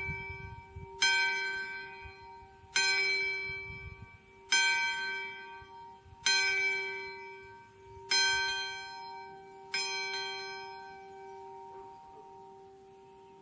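A single church bell tolling, struck six times at an even pace of about one stroke every two seconds, each stroke ringing on over a steady hum. After the last stroke, near the end, it is left to fade away.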